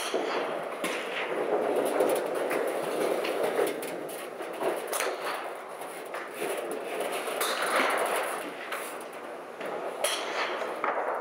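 Golf clubs striking balls at an indoor driving range: a few sharp clicks of impact, several seconds apart, over a steady rushing background noise of the hall.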